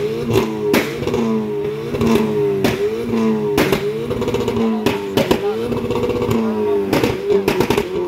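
Audi TT's engine revved hard over and over in quick blips, its pitch climbing and dropping about once a second, with sharp cracks and pops between the revs.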